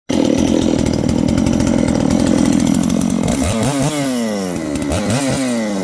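Two-stroke gasoline chainsaw running at high speed, then revved up twice about a second and a half apart, with the engine speed falling back each time. The saw was returned as a no-start but runs after simply being fuelled and primed.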